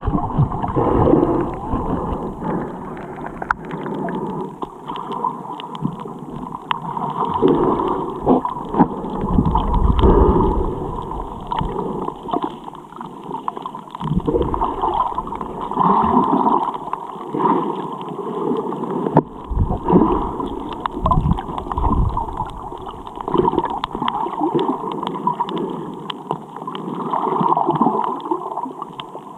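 Muffled underwater sound through a camera's waterproof housing: water gurgling and sloshing, with irregular low rumbles and scattered sharp clicks.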